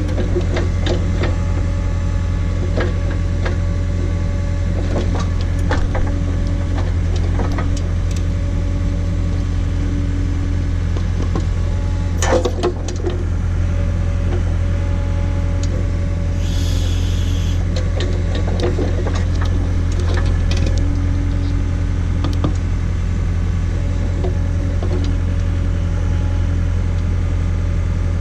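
John Deere 317 skid steer's diesel engine running steadily under load while working a Davis D100 backhoe attachment, with scattered knocks and clanks from the digging and one loud crack about twelve seconds in.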